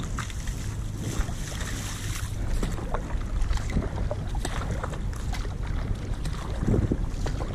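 Kayak paddle strokes on alternate sides, the blades splashing and dripping in calm water, over a steady low rumble of wind on the microphone.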